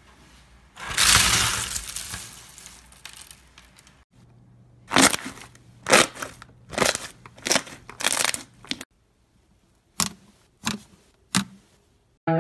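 A hand pressing and pulling pink fluffy slime, making a run of short, sharp pops about every 0.7 s. Before it there is one longer noisy burst that fades over about two seconds, and near the end three more short pops.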